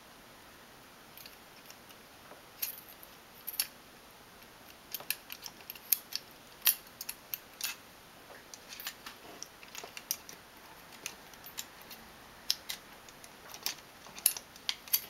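Small metal and plastic parts of a Sindoh 3DWOX DP200 print head being handled and fitted together: a metal mounting plate pressed into the plastic housing. The clicks and taps are light and irregular, sparse at first, then coming in small clusters.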